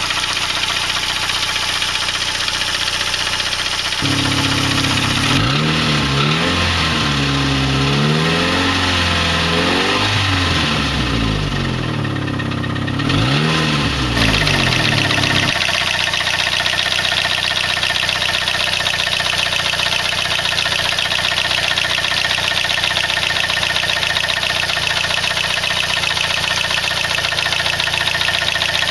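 Saab 9-3's B205E 2.0-litre turbocharged four-cylinder engine idling steadily. About four seconds in, the revs are raised and dropped several times over roughly ten seconds before it settles back to a steady idle.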